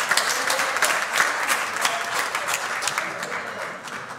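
Congregation applauding with dense clapping that dies down near the end.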